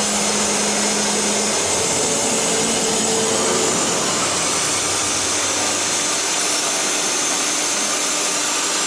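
3-axis CNC machining center running with a steady rushing whir. Faint hums over it change pitch and switch on and off every few seconds.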